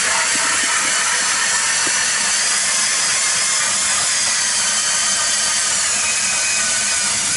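Ice auger turned by a power drill, boring a fishing hole through the ice: the drill motor runs steadily under the grinding of the blades cutting ice.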